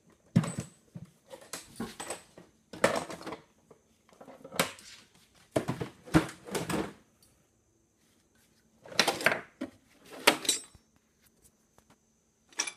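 Irregular clatters, knocks and scrapes of tools and metal objects being handled and moved about, in short bursts with quiet gaps between, the longest lull about seven seconds in.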